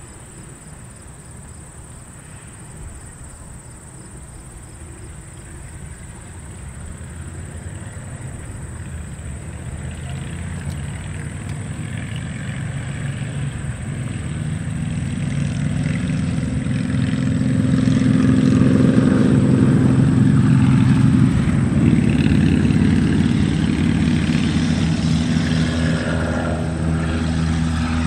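F-16 fighter jet approaching, its engine a rumble that grows steadily louder over the first two-thirds, then stays loud with its tones shifting in pitch.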